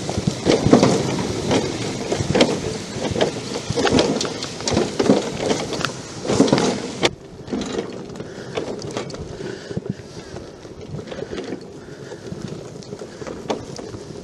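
Rumble and rattling knocks of a 1974 John Deere 112 garden tractor rolling over a bumpy yard under tow, with wind buffeting the microphone. It is loudest for the first half and drops after a sharp knock about seven seconds in, leaving lighter scattered clicks.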